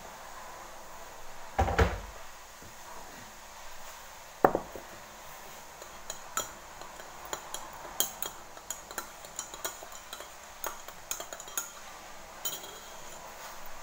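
Kitchenware clattering: a heavy thump about two seconds in, a sharp knock a little later, then a run of light metal clinks and taps of utensils against pans or plates, a few ringing briefly.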